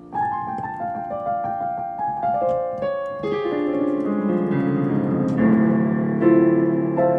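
Piano playing a quick run of single notes that step downward over the first few seconds. It settles into fuller sustained chords lower down.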